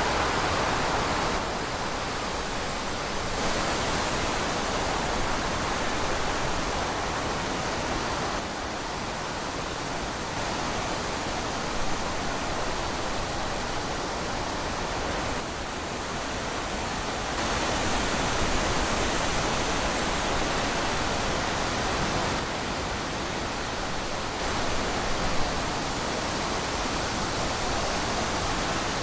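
Wind blowing through trees: a steady rushing noise that swells and eases every few seconds.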